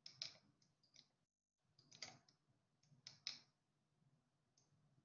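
Faint, scattered clicks of a stylus tapping on a pen tablet while handwriting: a pair at the start, one about two seconds in, and a pair a little after three seconds.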